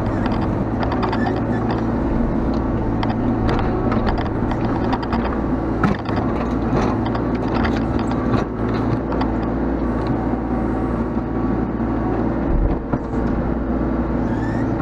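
Mini excavator's diesel engine running steadily under hydraulic load, with scattered clicks and knocks from the working arm throughout.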